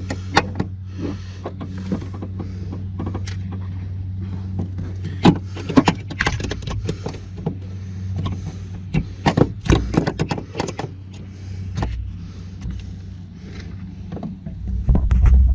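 Screwdriver scraping and clicking against the plastic retaining tabs of a car's grille emblem as they are pried at, over a steady low hum. A loud low rumble comes near the end.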